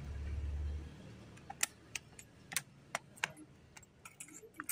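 A short low rumble, then a handful of faint, sharp clicks or taps at irregular intervals.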